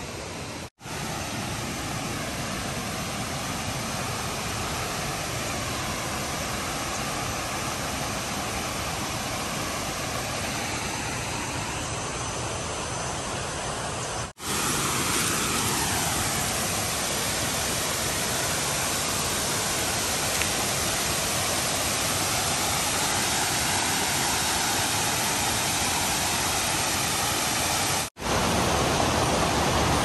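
Steady rush of water from a waterfall and the rocky stream below it, louder after a brief break about halfway through.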